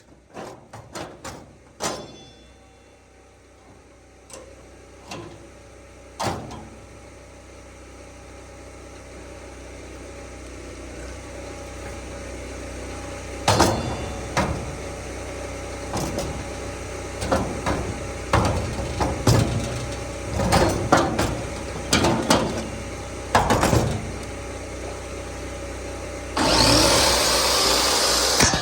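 A Kubota KX040 mini excavator's diesel engine running and slowly growing louder, with a series of sharp knocks and clanks through the second half and a sudden louder stretch near the end.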